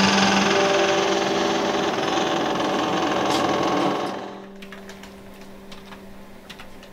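Background music with sustained notes that drops away about four seconds in. What follows is quieter: light, irregular clicks of a computer keyboard being typed on.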